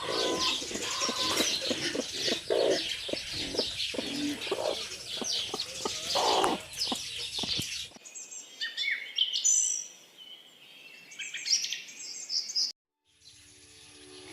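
Many day-old Philippine native chicks peeping, a dense chorus of high chirps with lower clucks and knocks mixed in, thinning to scattered peeps about eight seconds in. Background music starts just before the end.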